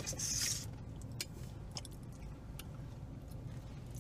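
A drink can cracked open with a short fizzing hiss, followed by scattered small clicks and chewing sounds.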